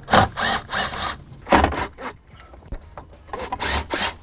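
Cordless power driver spinning out the T20 Torx screws that hold a truck's radio (APIM) module, in several short bursts with brief pauses between.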